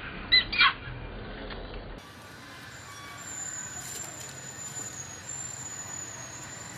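Infant macaque giving two short, shrill squeals near the start. For the last few seconds there is only a soft outdoor background with a thin, steady, high-pitched whine.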